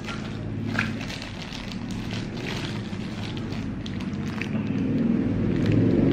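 Paper burger wrapper crinkling in the hands, a few sharp crackles, over a steady low engine-like drone that grows louder near the end.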